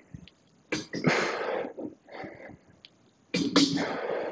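A man breathing hard through squats: loud, forceful breaths, two strong ones about two and a half seconds apart with a softer one between.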